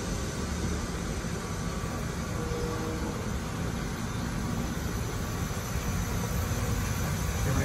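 Steady rumble and hiss of a steam-powered maple syrup evaporator running: sap boiling hard in the steam pan, with the exhaust fan pulling the steam off it.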